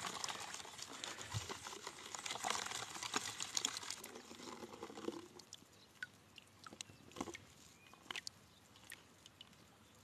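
Water and sand swishing and rattling in a plastic gold pan as it is swirled and tilted, washing the light material out over the riffles. About halfway through it fades to a few faint scattered ticks.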